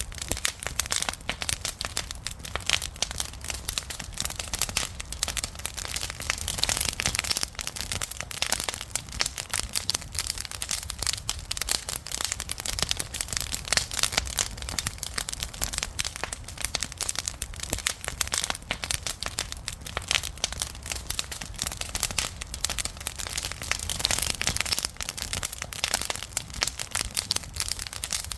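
Campfire crackling: a dense, unbroken run of small pops and snaps from burning wood, with a steady low rumble underneath.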